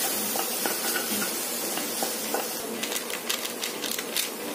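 Vegetables sizzling in a steel kadai while a wooden spatula stirs them, with a few light knocks against the pan. From about halfway through, a run of quick sharp clicks joins the sizzle.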